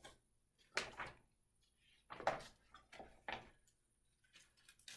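Soft paper rustles and brushes as the pages of a picture book are handled and turned, in several short bursts.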